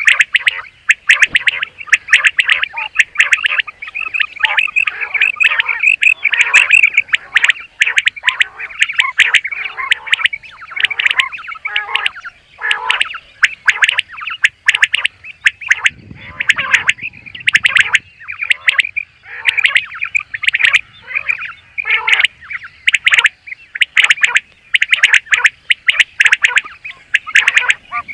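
Common quail calling in a dense, nearly unbroken run of high-pitched chirps and squawks, with many sharp clicks throughout. A brief low rumble sits under the calls about sixteen seconds in.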